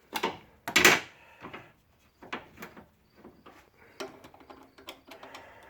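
Metal clatter of hand tools and alternator bracket parts being handled in an engine bay: two sharp clunks within the first second, then a run of lighter clicks and taps.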